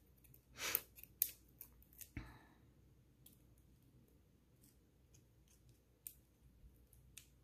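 Faint rustling and small clicks of a cardstock bow being handled and pressed together with a glue dot: a few short rustles in the first couple of seconds, then occasional light ticks.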